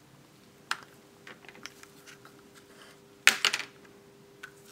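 Light plastic clicks and rattles of a blood-collection needle and vacutainer holder being picked up and handled, with a louder quick cluster of clicks about three and a half seconds in. A faint steady hum sits underneath.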